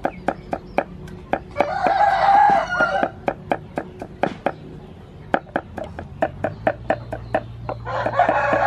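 Cleaver chopping garlic on a wooden chopping block, about three to four sharp chops a second. A rooster crows twice over it: once about one and a half seconds in, and again near the end.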